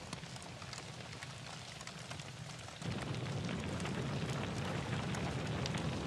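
Forest fire burning: a steady rushing noise with scattered crackles. It is quieter at first, and the low rumble of the flames grows louder about three seconds in.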